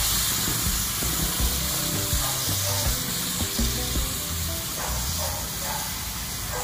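Food sizzling on a hot plate: a steady frying hiss, with a low rumble underneath.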